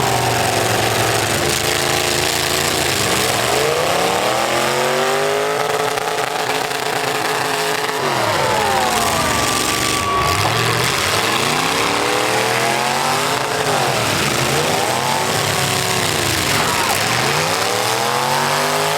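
Full-size V8 demolition derby car engines revving up and falling back again and again as the cars accelerate and back off, over a steady noisy haze.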